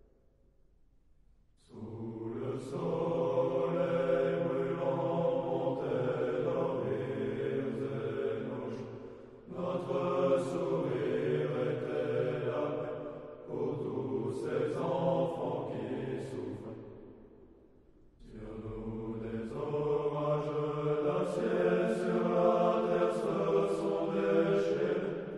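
A choir of low voices singing slowly in long held phrases, with short breaks between them. It comes in about two seconds in after a near-silent start.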